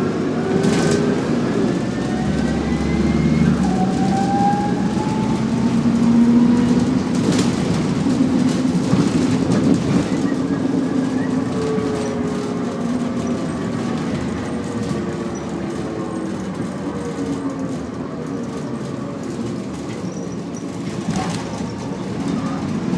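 Interior of an Optare Solo single-deck bus on the move: engine and drivetrain running with whines that rise in pitch in the first few seconds and fall gently later on, over steady road noise and rattle.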